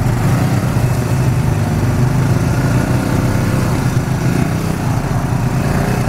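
Engines of several ATVs (quad bikes) running steadily close by as the quads pass one after another in single file.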